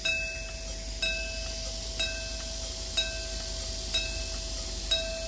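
Railroad level-crossing warning bell striking about once a second, each metallic ding ringing on into the next: the crossing alarm is active, signalling that a train is approaching.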